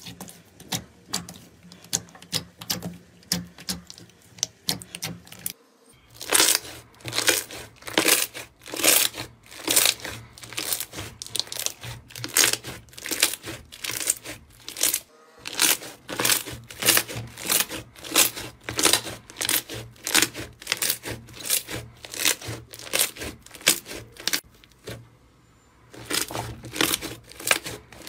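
Glossy black slime being pressed and squeezed by hand, giving a fast series of sharp wet pops and crackles as trapped air bursts out, about two to three a second. There are brief lulls a few seconds in and near the end, over a faint steady low hum.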